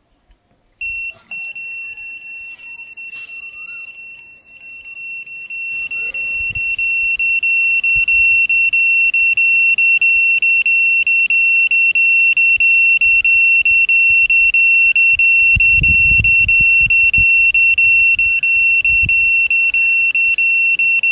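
Satellite finder meter's buzzer sounding a continuous high, steady-pitched tone, weaker at first and then growing loud about six seconds in and holding there: the meter is picking up signal from the satellite through the repaired C-band LNB. Faint handling and scraping noises run underneath.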